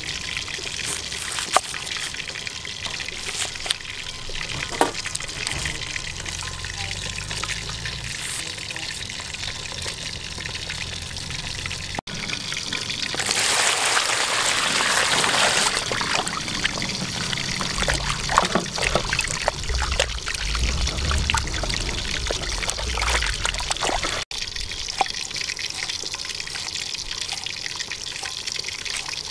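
Water poured into a plastic basin of cut vegetables, a loud splashing stream for about three seconds, then lighter splashing. Before and after it, a knife taps and cuts against a wooden chopping board.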